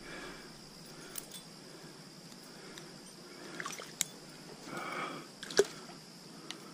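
Faint clinks and rustling as a trout is unhooked in a landing net, the small metal spinner lure jingling against the net, with a few sharp clicks, the clearest about four and five and a half seconds in.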